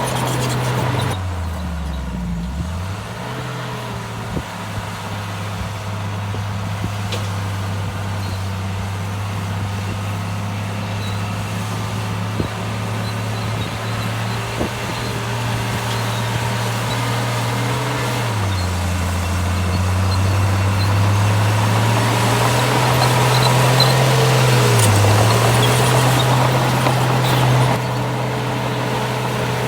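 Heavy diesel engine of an earthmoving machine running steadily. Its speed dips sharply and recovers about two seconds in, drops for a few seconds midway, and dips briefly again near the end.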